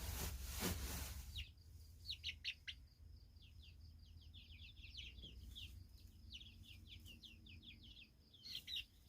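A flock of chickens peeping: many short, quick falling chirps, one after another, after a brief rustling noise in the first second or so.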